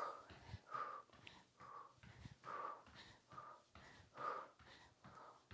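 A woman's quick, heavy breathing while exercising, picked up close by a clip-on microphone: a steady run of short breaths about two a second, with faint low thuds of movement underneath.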